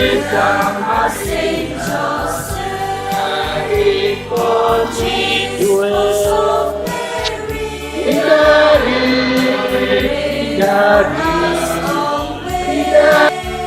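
Church choir and congregation singing a hymn in a local language, several voices together, over a steady percussive beat.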